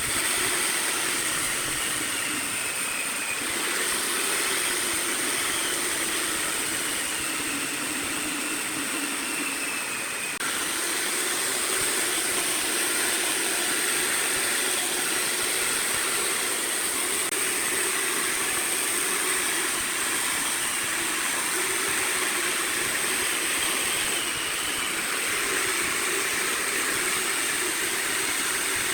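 Wood lathe running with a turning tool cutting the spinning wood: a steady, noisy scraping with a constant high whine, which shifts abruptly about ten seconds in.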